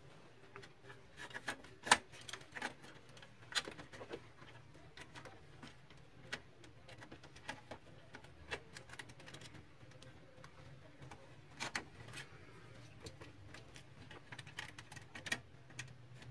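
Irregular small clicks and taps from hands working the plastic parts and wiring of an opened HP LaserJet 1320 laser printer during reassembly, the sharpest about two seconds in, over a faint steady low hum.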